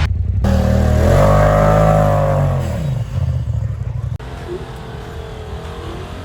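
Side-by-side UTV engine revving up and back down. About four seconds in the level drops suddenly and the engine runs on at a quieter, steadier pitch.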